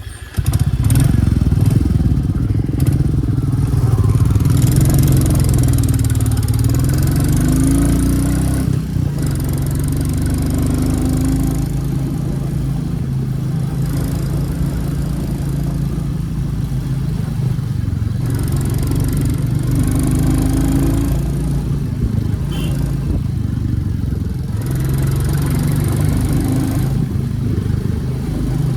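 2023 Royal Enfield Classic 350's single-cylinder 349 cc engine running with its exhaust note prominent, engine speed rising and falling several times, with a couple of brief dips.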